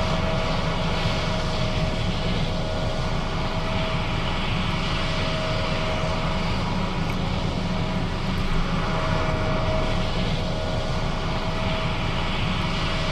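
John Deere S660 combine running steadily under harvest load: a low diesel rumble and machinery clatter, with a high whine that comes and goes.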